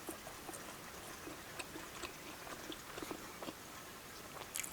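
A person chewing food close to the microphone: soft, irregular wet mouth clicks and smacks, with a short, slightly louder burst near the end.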